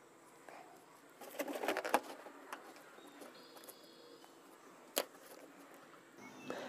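Faint rustling, rubbing and small clicks as hands work a thread around the neck of an inflated rubber balloon, densest about a second or two in, with one sharp click about five seconds in.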